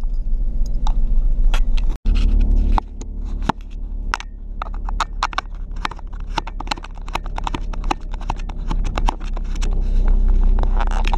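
Steady low hum of a vehicle's engine heard inside the cab, with a quick, uneven run of sharp clicks, several a second, starting about three seconds in.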